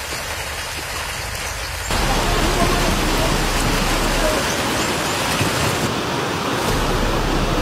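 Noise of rain and a wet road for about two seconds, then a louder, steady rush of floodwater pouring along a street.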